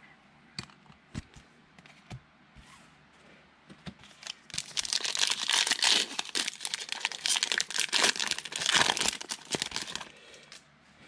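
Trading card pack wrapper being torn open and crinkled by hand, starting about four and a half seconds in and lasting about five seconds, after a few light clicks.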